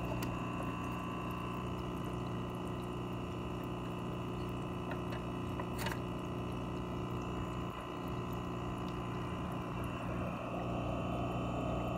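Aquarium filter pump running steadily: a constant low hum with the wash of moving water, and a single faint tick about six seconds in.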